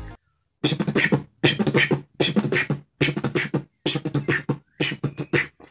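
Vocal beatboxing demonstration of a drum and bass groove: a fast, even pattern of mouth-made kick and snare strokes with snare rolls (redobles) woven in. It starts about half a second in.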